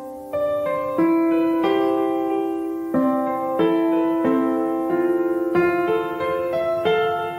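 Background music: a slow solo piano piece, chords struck about once a second and left to ring.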